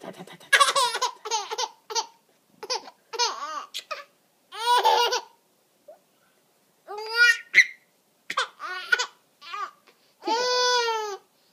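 Baby laughing in a string of high-pitched bursts and squeals while being tickled, ending with a long squealing laugh near the end.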